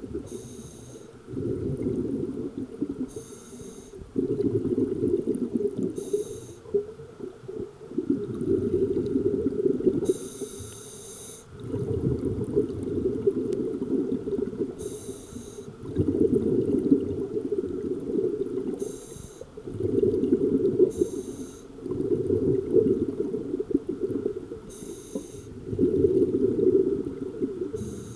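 Scuba diver breathing through a regulator underwater: a short hiss on each inhale, then a longer burst of rumbling exhaust bubbles, about nine breaths in a steady rhythm.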